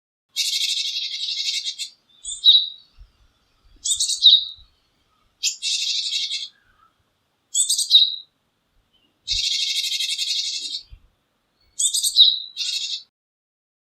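Japanese tit calling: short, sharp high notes followed by long, harsh buzzy rasps, the phrase repeated about four times with pauses between.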